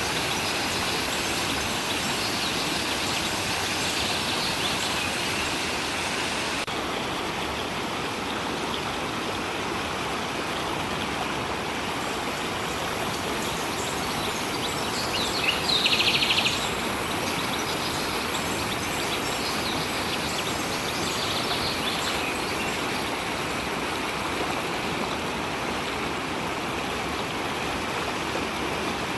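Steady rushing of a stream, with a few short trilled bird calls over it; the loudest is about halfway through.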